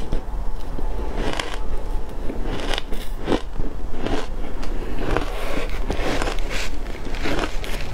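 Shaved ice being chewed: crisp crunches of ice between the teeth, in a steady run of about two a second.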